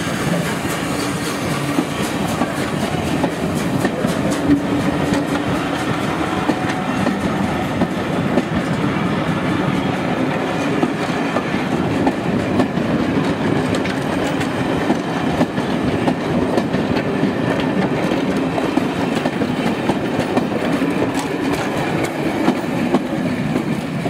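Coaches of a steam-hauled passenger train rolling past close by, their wheels clattering steadily over the rail joints.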